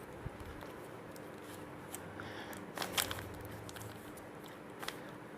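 3x3 Rubik's Cube being turned by hand: faint, irregular plastic clicks and rattles as the layers are rotated, with a sharper click about three seconds in and another near the end.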